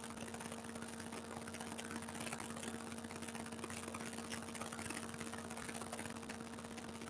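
Steady faint hum with an even hiss underneath, with no distinct events: room tone.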